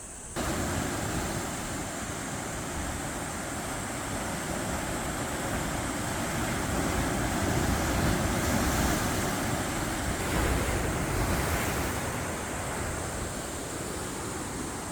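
Sea surf washing against a rocky shore: a steady rushing that swells louder a couple of times in the second half.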